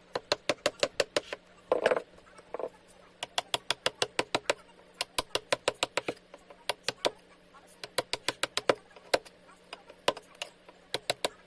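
Rapid light taps or clicks, about five a second, going on throughout, with a short voice-like sound about two seconds in.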